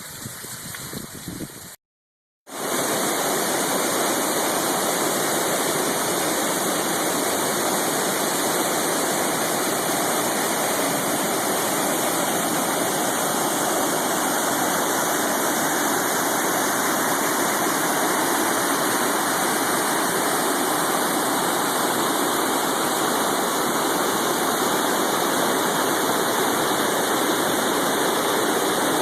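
A mountain creek's cascades rushing steadily over rocks. The water is softer for the first two seconds, cuts out briefly, then comes back louder and stays even.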